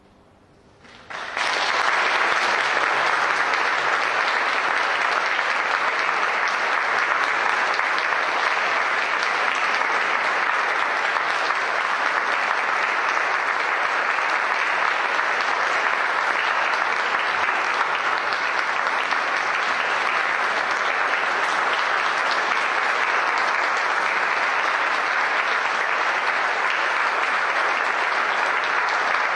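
Audience applauding: after a brief hush, clapping breaks out about a second in and carries on at a steady level.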